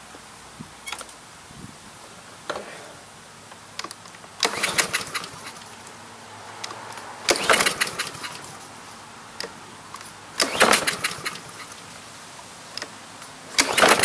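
Honda GCV160 lawn mower engine being pull-started: four yanks on the recoil starter about three seconds apart, each a second-long burst of the engine cranking over, on the first try after fuel flow was restored to the no-start engine.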